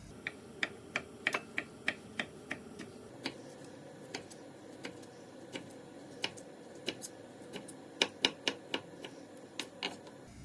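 An irregular run of sharp, light taps or clicks, about two to three a second, busiest in the first few seconds and again about eight seconds in.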